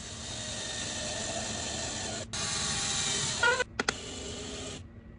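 Bosch cordless drill running as it drills a thin hole through a white drawer's side panel. It runs steadily for about two seconds, stops for a moment, then runs again. Near the end there is a brief rising whine from the motor, two sharp clicks, and a quieter stretch before it stops.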